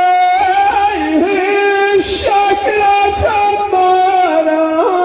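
A man's solo voice chanting an Ahwach poem into a handheld microphone: a long held note gives way about half a second in to a wavering, ornamented melody line. A few dull low thumps sound under it.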